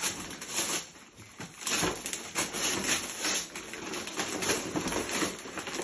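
Gift wrapping paper rustling and crackling in irregular bursts as a present is opened.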